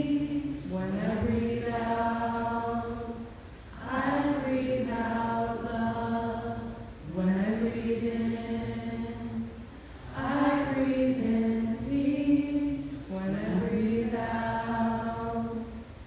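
A group of voices chanting a sung breathing meditation together, a repeating drone of 'breathe in, breathe out'. Each phrase slides up into a long held note, and the chant dips briefly between phrases about every three seconds.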